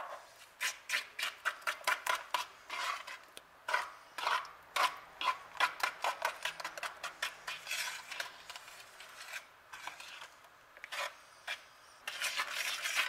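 Metal fork beating a liquid batter of eggs, sugar, oil and milk in a well of flour on a wooden pastry board: a run of quick, uneven scraping strokes, a few a second, growing denser near the end.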